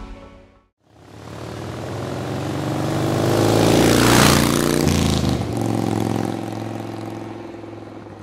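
Motorcycle engine passing by: it swells louder and climbs to a peak about four seconds in, drops in pitch just after and fades away.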